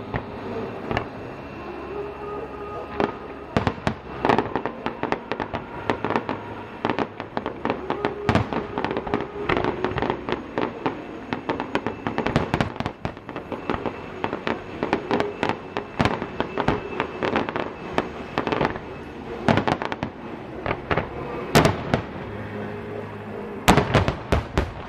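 Fireworks display: a dense run of bangs and crackles from aerial shells, with thicker volleys in the middle and a close cluster of loud bangs near the end.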